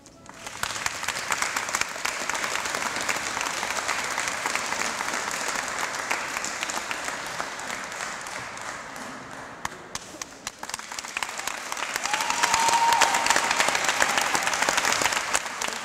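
Crowd applauding: a dense patter of clapping that starts suddenly, eases off briefly about ten seconds in and swells again. A short high held note rises over it about twelve seconds in.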